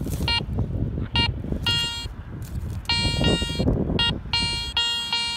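Metal detector's signal tone sounding in pulses: a few short beeps, then longer held tones about three seconds in and again near the end, over a low rustling. The coil is passing over a deep target that is still ringing up strongly.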